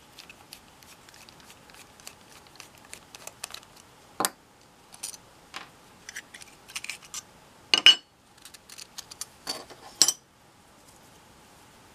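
Small metallic clicks, scrapes and clinks as a screwdriver backs out the screw of a Lewis utility knife and the metal handle is opened, with the spare blades inside clinking together. The louder knocks come about four, eight and ten seconds in.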